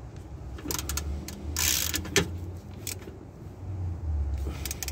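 Ratchet and socket extension being worked against a tight oil drain plug: a few sharp clicks and short scraping, knocking bursts from the tool.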